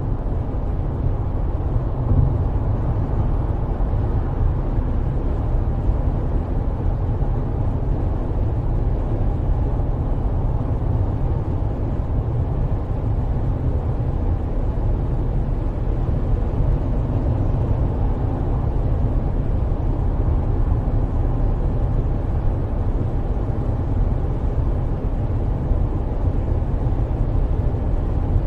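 Steady low rumble of a moving road vehicle, engine and road noise running evenly without change.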